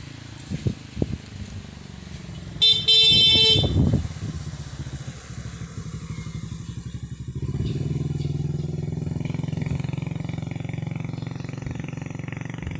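A vehicle horn honks once for about a second, a steady flat tone. A small motor vehicle engine, like a motorcycle's, runs in the background and gets louder about halfway through.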